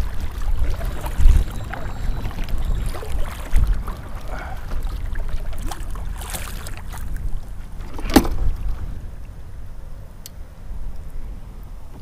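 Kayak on the water as he paddles off: wind buffets the microphone in gusts over splashing, with one sharp knock about eight seconds in, then calmer.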